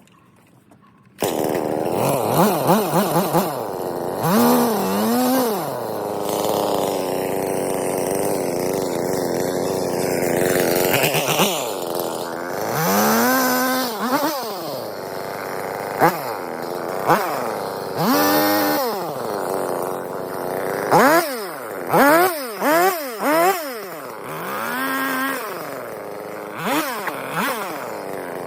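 Husqvarna 450E Rancher two-stroke chainsaw bucking a felled poplar. It comes in suddenly about a second in, runs under load through the wood with its pitch held steady, and from about halfway on is revved up and let back down to idle again and again between cuts.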